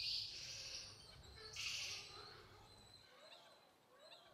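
Faint high chirping calls, twice in the first two seconds, over a low outdoor rumble that drops away about three seconds in.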